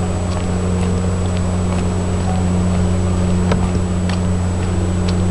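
Steady low mechanical hum of an engine or machine running, growing slowly louder, with scattered faint clicks over it.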